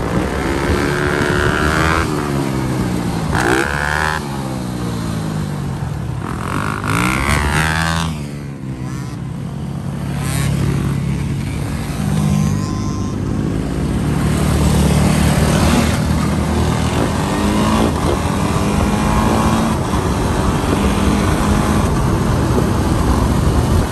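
Dirt bike engines revving and riding past, their pitch sweeping up and down with throttle and speed. About halfway in it settles into a steadier engine drone as the bikes ride along.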